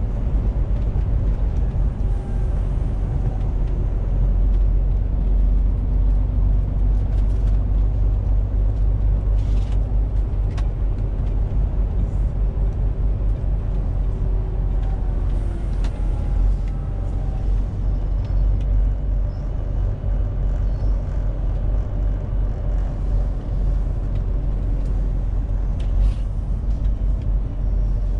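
Inside the cab of a MAN TGX 470 truck on the move: its diesel engine and the road give a steady low rumble, with a faint whine that rises and falls in pitch and a few brief clicks.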